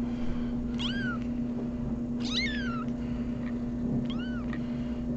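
A very young kitten, its eyes only just open, mewing three times in high, thin calls; the middle mew is the longest and slides down in pitch.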